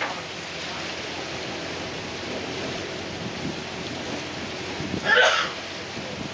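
Steady rushing noise of water and wind heard from aboard a moving boat on a lake, with one brief louder sound about five seconds in.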